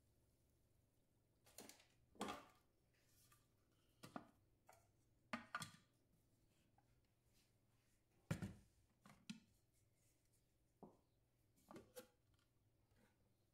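A dozen or so short, separate clicks and knocks of a kitchen robot's plastic lid and measuring cup being handled on its stainless steel bowl, with the loudest, deepest knock about eight seconds in. No motor is heard running.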